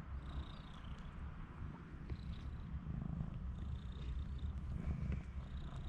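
Mother cat purring steadily, with a few faint high squeaks over the purr.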